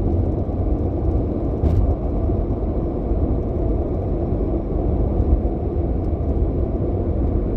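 Steady low rumble of background noise with no speech, with one short click about a second and a half in.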